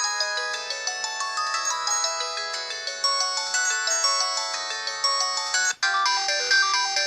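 LG-SD200 mobile phone playing its built-in polyphonic ringtone melodies through its speaker, with short, bright notes in quick succession. A little before six seconds in, one tune stops abruptly and the next ringtone starts.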